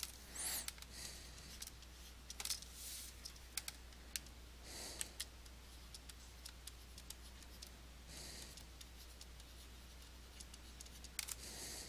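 Faint scattered taps and short scratchy strokes of a stylus writing on a tablet.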